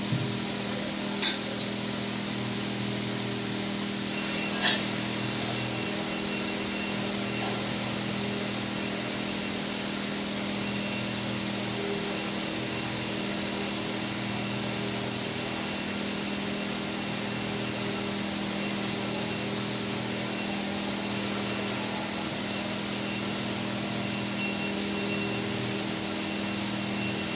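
Steady hum of a small electric furnace blower running. A few sharp metal clinks sound in the first five seconds.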